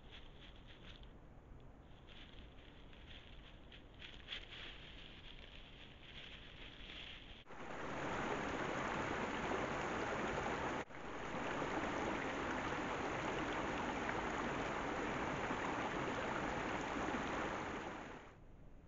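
Mountain stream running over rocks at a ford: a loud, steady rush of water that starts suddenly about seven seconds in, drops out for an instant, and stops shortly before the end. Before it, faint rustling of dry leaf litter.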